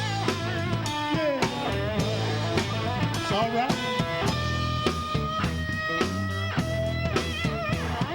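Rock band playing: electric guitar with bent notes over drums and a steady bass line.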